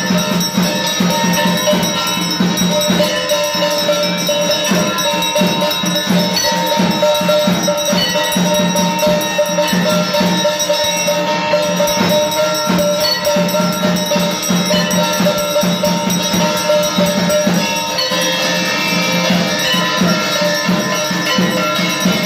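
Drums beating a fast, steady rhythm with bells ringing continuously over them: the drum-and-bell music that accompanies a Durga Puja arati.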